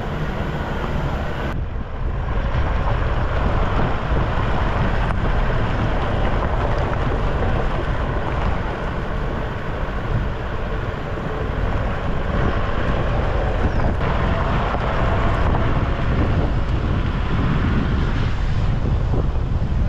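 Wind rushing over the microphone of a Toyota Hilux pickup driving on a gravel track, with a steady low rumble from the truck and its tyres.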